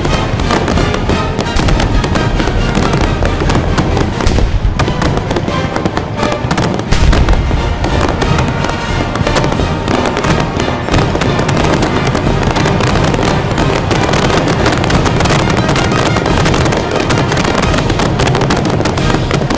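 Fireworks going off in a rapid, densely overlapping string of bangs and crackle, with music playing underneath.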